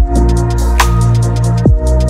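Electronic background music with a heavy, steady bass line and a drum beat: a deep falling kick at the start and near the end, a snare hit about a second in, and fast hi-hat ticks throughout.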